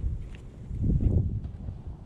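Wind buffeting the microphone, a low rumble that swells into a stronger gust about a second in.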